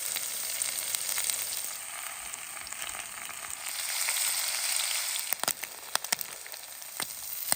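Food frying in a hot pan, a steady sizzle with fine crackling, and a few sharp clicks in the last couple of seconds.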